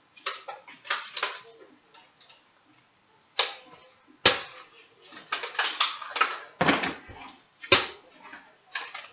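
Foam-dart toy blasters being handled and fired: sharp, short plastic clacks and knocks at irregular intervals, the loudest a little over three seconds in, about four seconds in and again near the end.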